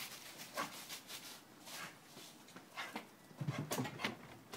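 A dog makes faint breathy snuffles about once a second, then a low whimper in the last second or so.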